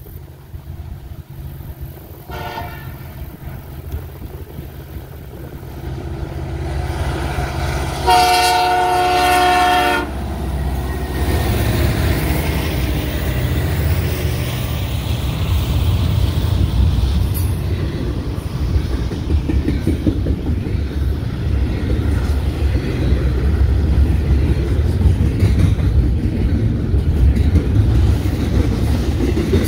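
Canadian National intermodal freight train with EMD diesel locomotives (SD70M-2 and SD75I) passing: the lead locomotive's horn gives a short note about two seconds in and a long, loud blast at about eight seconds. The locomotives' diesel engines rumble by, followed by double-stack container well cars rolling past with steady wheel clatter.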